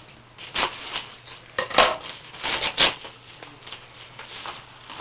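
Paper and plastic card packaging being handled and opened: a handful of sharp crinkles and scrapes, the loudest about two seconds in.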